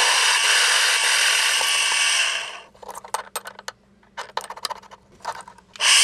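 A drill press boring a twist drill into a steel block held in a machine vise, with a steady cutting noise that stops about two and a half seconds in. Scattered light clicks and taps follow, and drilling starts again near the end.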